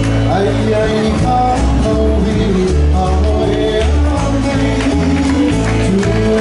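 Live Hawaiian music from a small string band: acoustic guitars strumming over a bass line, with a man singing at the microphone.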